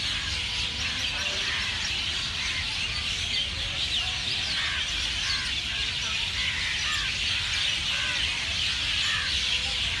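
A dense chorus of many birds chirping and twittering together in trees, short high calls overlapping without pause, over a steady low background rumble.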